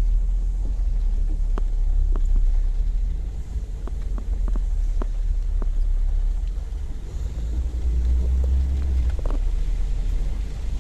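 Storm wind in heavy rain, a deep steady rumble with scattered sharp taps of raindrops striking window glass.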